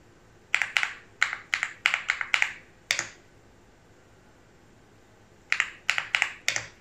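Typing on a computer keyboard: a quick run of about nine keystrokes, a pause of about two and a half seconds, then about five more.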